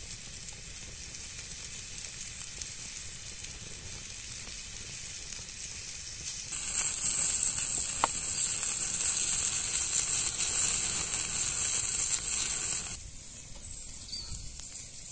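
Meat slices and garlic sizzling on a flat stone heated over a campfire: a steady frying hiss that gets louder about halfway through and drops away sharply near the end.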